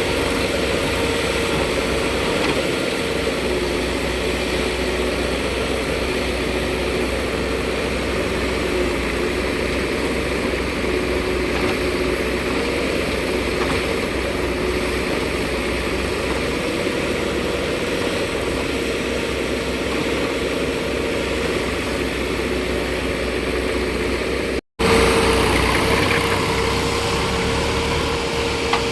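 Diesel engine of heavy earthmoving machinery running steadily, with a sustained hum. About 25 seconds in it cuts off for an instant and comes back slightly louder.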